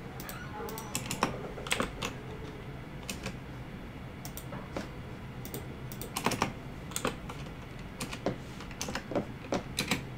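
Computer keyboard typing: scattered key clicks, a few at a time, with quicker runs about six seconds in and again near the end.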